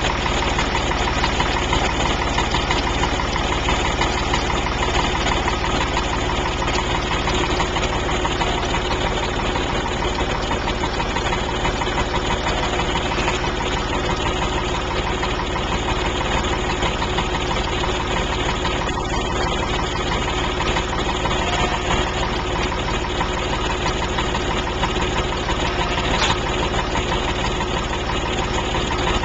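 An engine idling steadily, with an even, unchanging drone.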